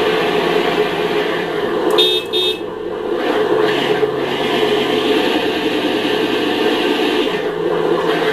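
Electronic sound module of a 1/10-scale RC Defender D90 pickup playing a steady simulated engine-running sound, with two short horn toots about two seconds in.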